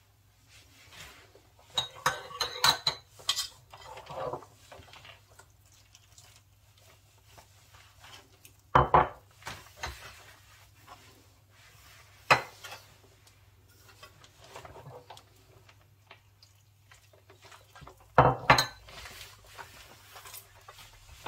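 A spoon clinking and knocking against a mixing bowl as flour is mixed with the yeast mixture for pizza dough. A quick run of clinks comes about two seconds in, followed by three separate sharp knocks, the last near the end.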